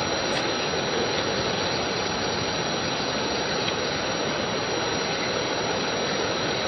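Steady rushing hiss of a strong jet of water spraying onto leaf litter on the ground.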